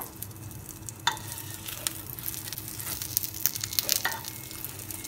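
Egg omelette sizzling and crackling as it fries in a nonstick pan, with a metal spoon clicking and scraping against the egg and pan as it is shaped. A sharp click stands out about a second in.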